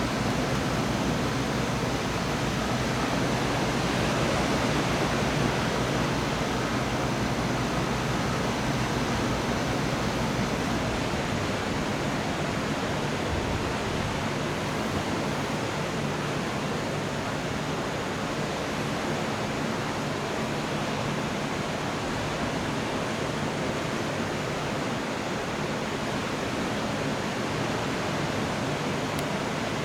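Steady heavy rain from a thunderstorm, an even unbroken hiss. A faint low hum underneath fades out about a third of the way in.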